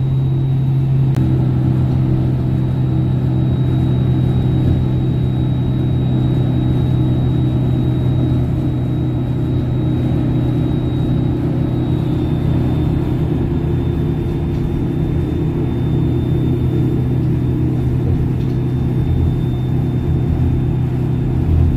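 Shuttle bus engine running at a steady drone, heard from inside the passenger cabin, with a faint high whine over it.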